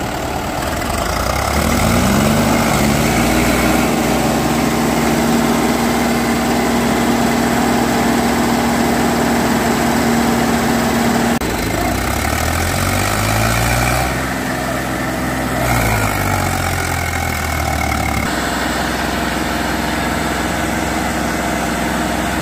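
Diesel tractor engines of a Mahindra Yuvo 575 DI and an Eicher 380 working under heavy load, as the Mahindra tows the Eicher and its loaded trolley out of deep mud. The revs climb about two seconds in and hold high, drop near the middle, rise and fall again, then settle lower for the last few seconds.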